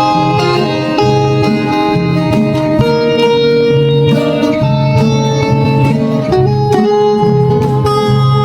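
Background music led by plucked guitar, with a steady low bass line and melody notes changing every fraction of a second.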